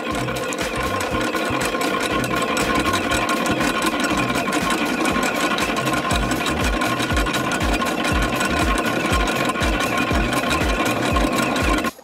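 Shinagawa Kogyosho Dalton universal planetary mixer running empty with its hook beater turning: a steady mechanical whir with a low rhythmic thudding, two to three beats a second, through the second half. It cuts off abruptly at the end.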